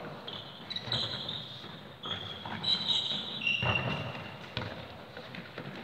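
Players' trainers squeaking on a sports-hall floor in indoor football: a run of short, high squeaks through the first four seconds, with a few dull thuds of feet or ball.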